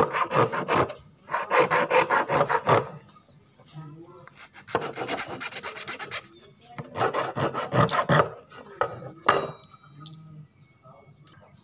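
Steel flat file rasping across a wooden knife handle in quick back-and-forth strokes, shaping the wood. The strokes come in about four bursts with short pauses between, dying away near the end.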